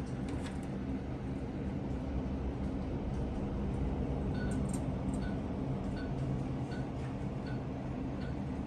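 Vehicle engine idling steadily. From about four seconds in, a short high beep repeats about every 0.6 s.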